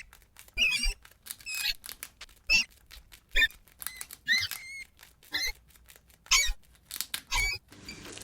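Rat squeaking in short, high-pitched chirps, about a dozen in irregular succession, some sliding or wavering in pitch.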